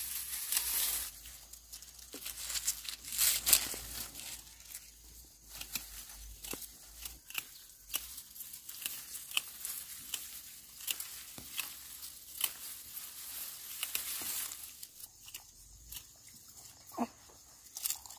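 Rustling and crinkling with many scattered sharp clicks and snaps, loudest a few seconds in and quieter near the end.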